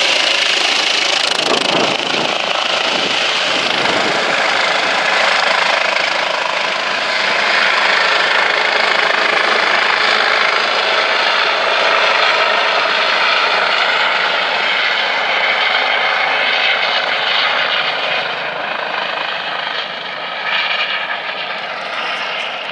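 Rescue helicopter's rotor and turbine running loud and steady, growing quieter and duller over the last few seconds.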